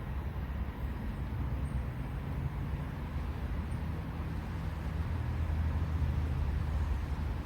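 Low, steady engine rumble of road traffic, slowly getting louder toward the end.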